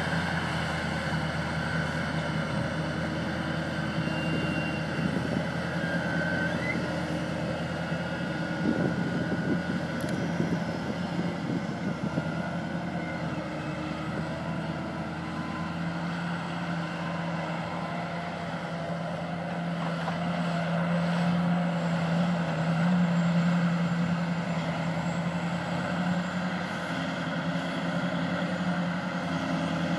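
Heavy diesel engine of a rubber-tracked tractor pulling two tandem earth scrapers: a steady, low drone that grows louder for a few seconds about two-thirds of the way through, then eases back.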